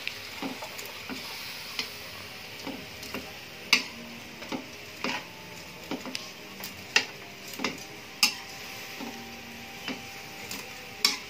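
Metal spoon knocking and scraping against an aluminium wok as noodles are tossed and stir-fried, in irregular clinks about one or two a second, over a faint frying sizzle.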